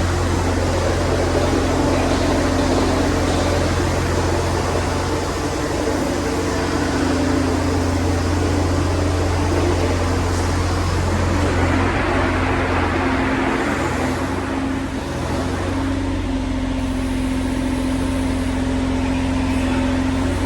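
John Deere 35G mini excavator's diesel engine running steadily with a constant low hum, with a brief swell of rushing noise about twelve seconds in.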